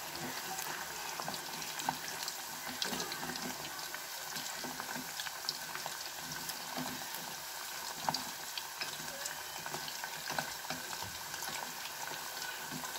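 Green banana strips deep-frying in hot oil in a small pot: a steady sizzle with frequent small crackles and pops.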